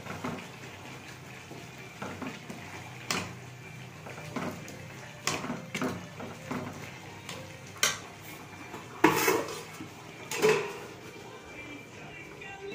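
Steel kitchen pots, lids and utensils clinking and clattering as they are handled, in scattered sharp knocks, the two loudest in the last few seconds.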